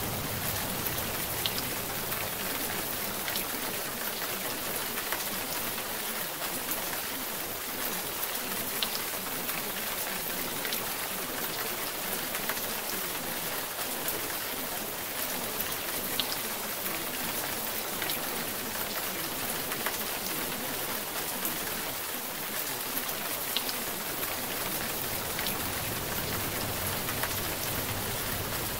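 Steady rain: an even hiss with scattered small drop ticks, holding at one level throughout.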